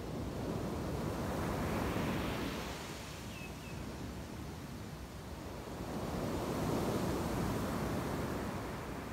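Surf breaking on a sandy beach: a steady wash of waves that swells twice, about five seconds apart.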